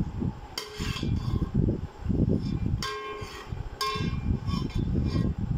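Metal ladle knocking and scraping in a steel cooking pot. Three clanks ring briefly: the first about half a second in, two more near three and four seconds. Fainter knocks follow over a low rumble.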